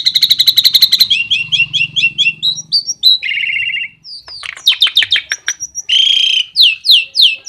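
Tame starling (jalak) singing a varied song: a rapid chattering trill, a string of stepped notes and a buzzy note, a row of dry clicks, a harsh rasp about six seconds in, then repeated downward-slurred whistles, about three a second.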